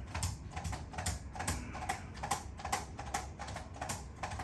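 Handheld chiropractic adjusting instrument firing repeatedly against the back to relax the paraspinal muscles, a regular clicking about two to three times a second.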